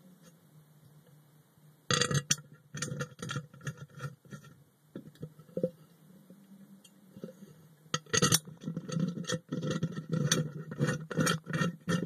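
Water boiling under vacuum, picked up by a phone inside the vacuum chamber: sudden bursts of bubbling and gurgling pops start about two seconds in and come faster and more steadily after about eight seconds, over a steady low hum.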